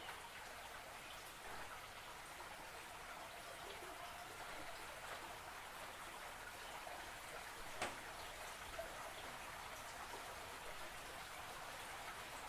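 Faint water trickling and dripping, with scattered small clicks and one sharper tick about eight seconds in.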